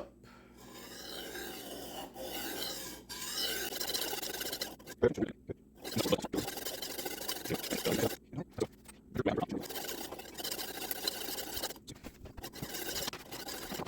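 Steel knife blade (Ontario RAT-7) drawn in repeated strokes across a 300-grit diamond sharpening stone: a gritty scraping rasp. Each stroke lasts about one to two seconds, with short breaks between them. This is the reprofiling pass that grinds a new edge bevel.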